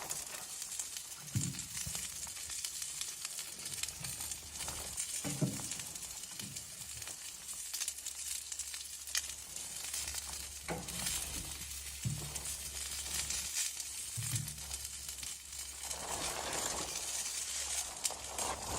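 Food sizzling and spitting in a pan on a wood stove, with a few dull knocks from handling.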